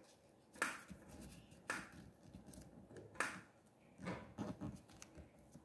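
Origami paper being folded in half and creased by fingers: several faint, short crinkles and rustles, roughly one a second.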